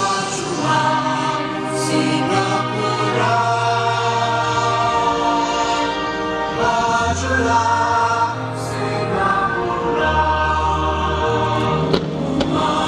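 Choral music: a choir holding sustained chords over a slowly changing bass line. One sharp crack near the end.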